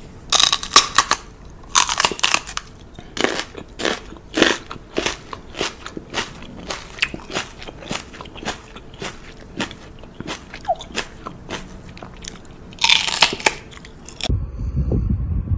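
A dog chewing something crunchy, with loud, irregular crunches about twice a second. Near the end it cuts to a low rumbling noise.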